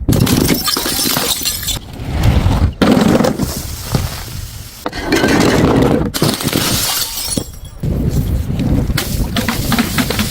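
Glass bottles smashing, a series of loud crashes one after another with breaking and scattering glass.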